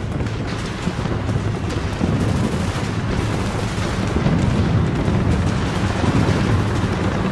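Battle sound effect: a dense, steady crackle of gunfire over a continuous low rumble of explosions, growing slightly louder about two seconds in.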